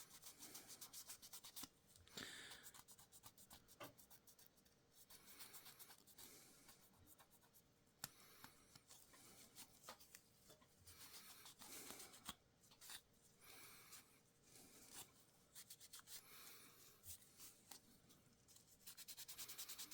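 Faint, quick back-and-forth rubbing on a small 3 mm plywood puzzle piece, wiping leftover paper template and glue-stick residue off with denatured alcohol. The rubbing comes in spells, with a few light clicks and taps between them.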